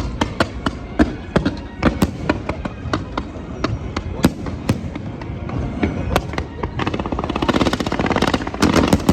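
Aerial fireworks exploding in a quick, irregular series of sharp bangs. Near the end they turn into a dense, rapid crackling.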